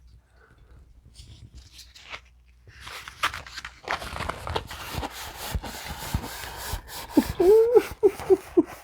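Crinkly plastic packaging rustling and crackling as a rolled canvas print is unwrapped. Near the end a woman's voice breaks in with a short run of pitched, bending sounds, about four a second, louder than the rustling.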